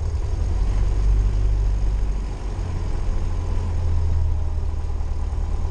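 Cessna 172's piston engine idling steadily just after starting, heard from inside the cockpit as a low, even drone.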